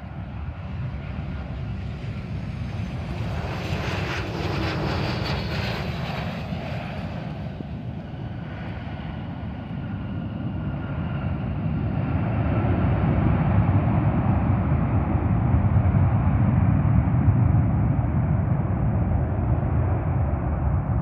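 Jet engines of a Southwest Boeing 737 airliner as it touches down and rolls out on the runway. A high whine fades away by about eight seconds in, under a steady low rumble that grows louder in the second half.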